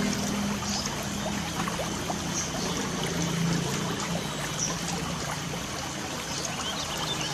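Steady hiss of light rain falling, with a few faint, short bird chirps now and then. A low steady hum runs underneath.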